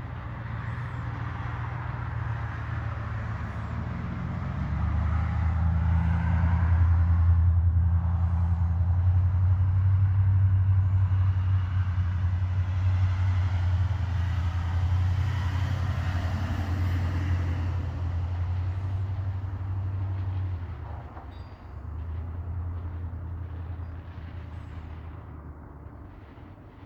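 Motor vehicle engine running with a steady low drone that grows louder about four seconds in, dips briefly past the twenty-second mark and then fades away.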